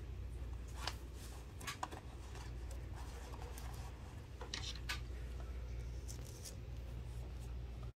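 Soft rustles and small clicks of a disposable dust mask being put on, then a small plastic jar of glass powder being handled and opened, over a steady low hum.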